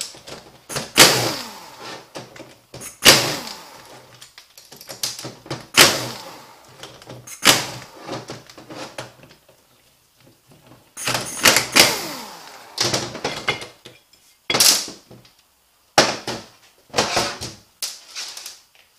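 Cordless power driver with a 5 mm Allen socket running in about ten short bursts, some winding down in pitch, backing out the bolts of a 09A automatic transmission's oil pump.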